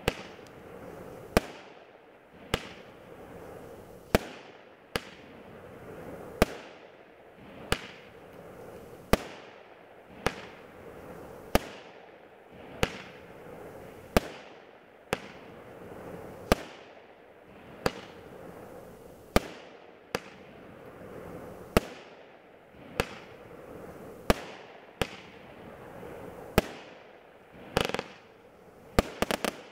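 A 45-shot, 500-gram consumer firework cake (Iron Claw Imminent Horizon) firing its shots one at a time, a sharp bang roughly every second and a quarter. Near the end several pops come in quick succession.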